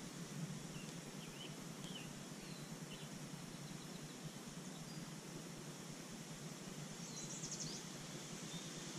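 Steady outdoor background of hiss and a low hum, with birds chirping briefly a few times in the first couple of seconds and a short, rapid high trill about seven seconds in.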